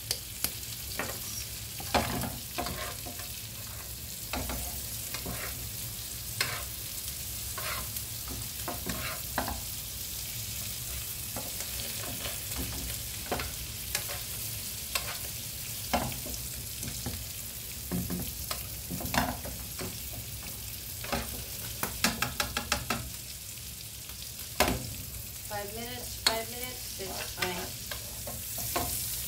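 Steaks frying in butter in a frying pan, a steady sizzle throughout. Scattered sharp clicks and knocks come from the pan and the meat being handled, with a quick run of them about three-quarters of the way through.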